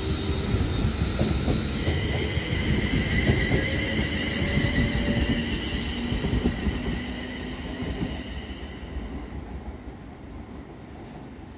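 Two coupled Class 360 Desiro electric multiple units passing, with a steady high electric whine over wheel-on-rail rumble and rattle. The sound fades away from about eight seconds in as the train recedes.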